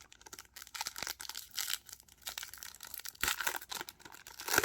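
Wrapper of a 2021 Topps Gallery baseball card pack being torn open and crinkled: irregular crackling, with sharper, louder tears about three seconds in and again near the end.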